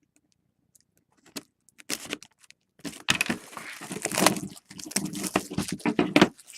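Hands handling a sealed box of football trading cards and its wrapping: scattered clicks, then busy rustling and crinkling with sharp clicks from about three seconds in until just before the end.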